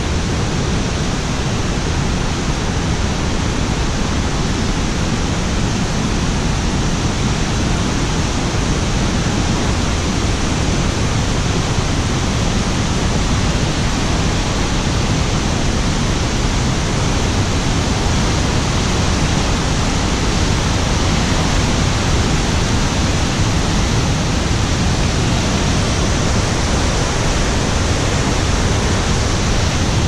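Steady, loud rush of falling and fast-flowing water from Melincourt waterfall and the stream beside the path.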